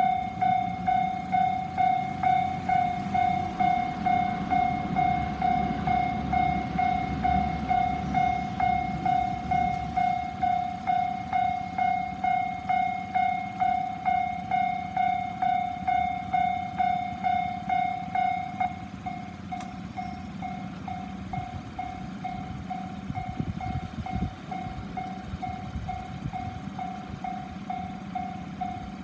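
Japanese railway level crossing's electronic warning bell ringing steadily, about two dings a second; about eighteen seconds in the bell drops to a quieter level and keeps ringing. A passing train rumbles underneath.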